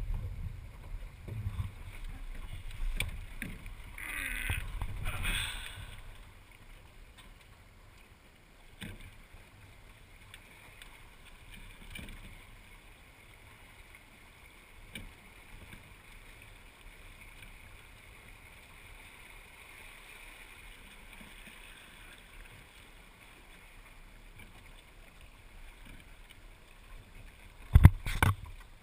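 Water swishing along the hull of a small sailing dinghy, with wind rumbling on the microphone and two short hissing rushes of water about four seconds in, then a faint steady hiss. A couple of sharp knocks near the end as the boat-mounted camera is bumped.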